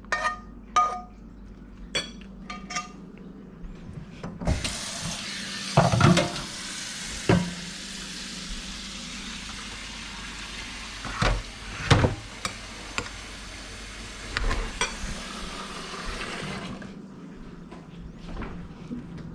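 A spoon clinking against a glass a few times in quick succession, then a kitchen tap running into the sink for about twelve seconds with several knocks of dishes, shut off abruptly.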